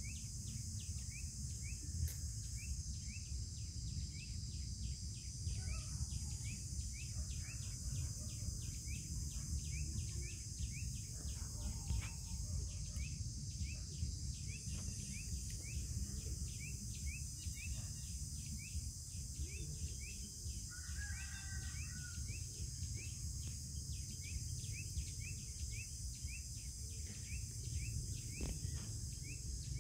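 Outdoor insect chorus: a steady high buzz with an even, rapid chirping about four times a second, over a constant low rumble. A short call sounds once about two-thirds through.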